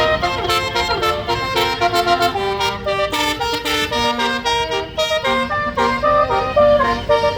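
Indonesian bus 'basuri' telolet horn playing a fast melody of short notes that step up and down, over the rumble of the bus.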